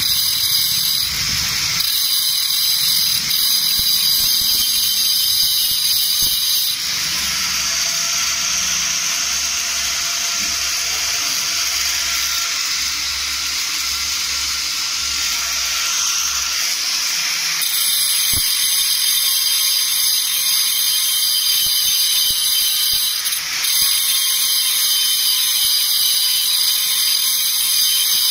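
Flour mill machinery running with a steady, high-pitched mechanical whine. It turns harsher and hissier for about ten seconds in the middle, then settles back to the whine.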